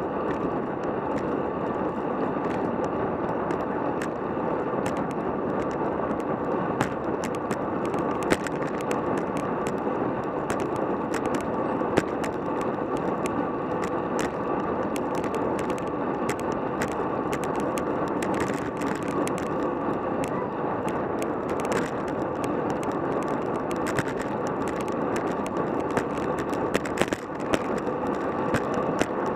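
Road bicycle rolling at about 20 mph on asphalt: steady tyre and wind noise, with frequent small clicks and rattles.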